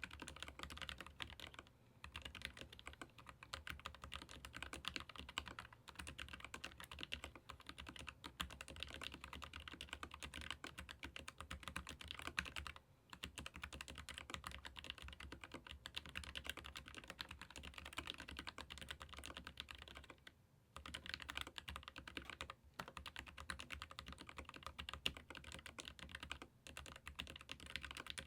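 Continuous fast typing on a Keychron K15 Pro Max ergonomic keyboard with Gateron low-profile red (linear) switches: a dense stream of soft key clacks, broken by brief pauses a few times.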